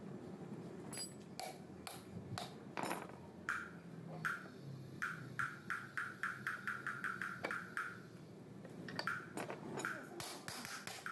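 Light hammer taps on metal, a quick series of short ringing strikes at about three a second, pausing briefly and starting again near the end.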